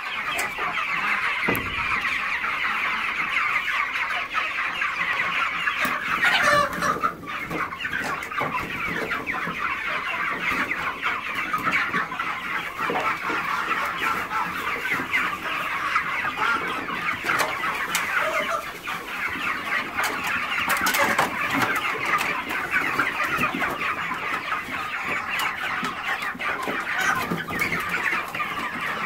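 A large flock of young meat chickens calling all at once in a continuous, dense chatter, worked up at feeding time. A few brief knocks sound about a quarter of the way in and again past the middle.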